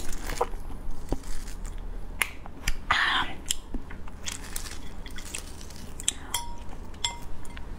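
Soy-sauce-marinated raw crab being broken apart by hand: scattered cracks and snaps of shell and legs, with one longer wet crackle about three seconds in.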